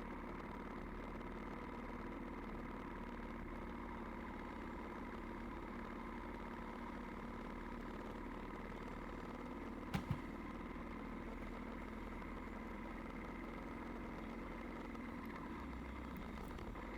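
Vehicle engine running at a steady, even drone, with two quick knocks about ten seconds in.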